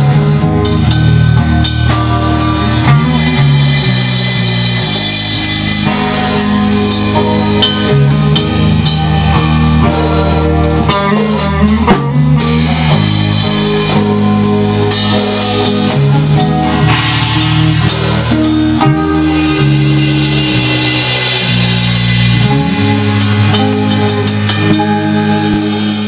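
Rock band playing live: electric guitar, electric bass and a drum kit with cymbals, loud and steady throughout.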